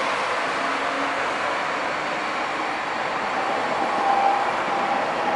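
Steady, even rush of distant city traffic, with a faint thin whine coming in about three seconds in.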